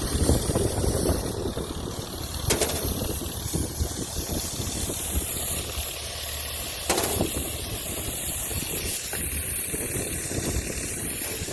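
Compressed air hissing hard from a blow gun as dust and chaff are blown out of a combine's engine bay, over the low rumble of a running engine.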